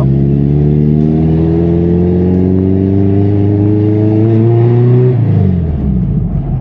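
Ford Versailles' carbureted, naturally aspirated VW AP four-cylinder engine (Weber 446 carburettor) pulling under acceleration, its note climbing steadily, then the revs falling off sharply about five seconds in.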